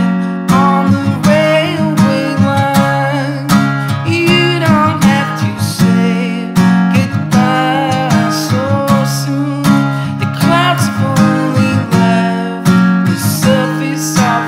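Strummed acoustic guitar with a male voice singing a folk melody over it.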